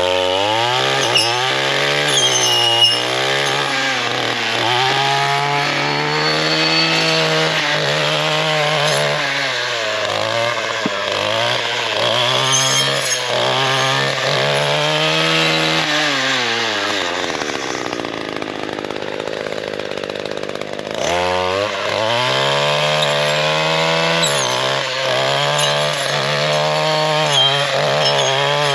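Gas trimmer fitted with a heavy saw blade, its engine revving up and down over and over as the blade cuts into privet and wisteria brush. About two-thirds of the way through, the engine falls back to a low idle for a few seconds, then revs up again.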